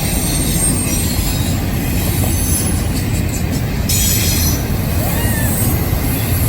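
Train rolling past on the track: a loud, steady rumble of wheels on rails.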